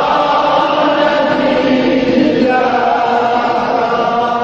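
Male chanting of a mourning elegy for Imam Hussain in Azerbaijani, drawn out in long held notes that move to a new pitch about halfway through.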